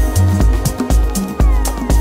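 Electronic background music with a steady beat and bass line, with a falling synth glide about three-quarters of the way through.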